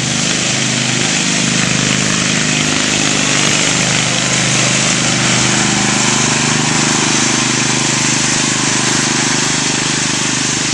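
Riding lawn mower's engine running steadily as it drives along, a constant drone with a broad hiss over it.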